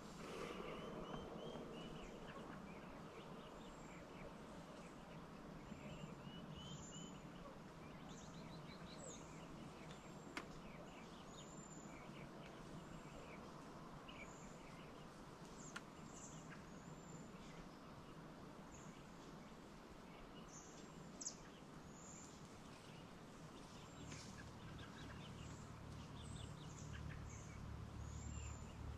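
Faint outdoor birdsong: many short chirps and whistles from several small birds, scattered over a steady low background. A low rumble builds over the last few seconds.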